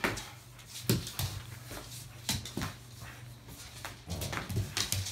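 A dog making noises as it tugs on a rope toy, over a steady low hum, with scattered sharp knocks and scuffs, more of them near the end.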